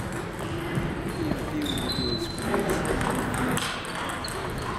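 Table tennis ball clicking off bats and tables in an ongoing rally, a series of short sharp ticks. A few short high squeaks and faint distant voices mix in.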